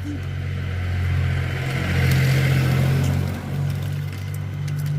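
Motor vehicle engine running with a steady low drone, growing louder toward the middle and then easing off.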